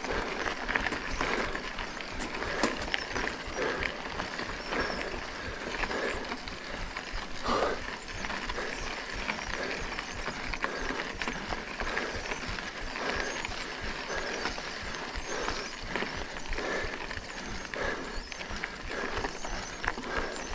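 Mountain bike being ridden along a dirt trail: steady tyre and ride noise with many small knocks and rattles, and a regular pulse about once a second.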